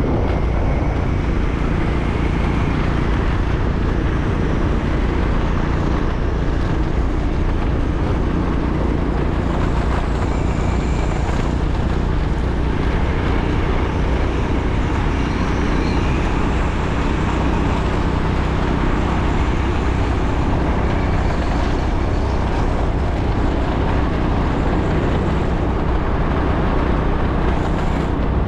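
Road vehicle travelling at steady speed: a constant low engine hum with road and wind noise.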